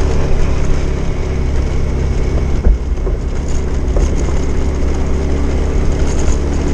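Small motorcycle engine running steadily while riding, with wind rumbling on the camera microphone.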